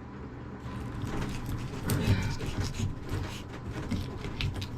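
Irregular clicks, taps and scraping of a knife and hands working on crappies being cleaned, busiest about two seconds in.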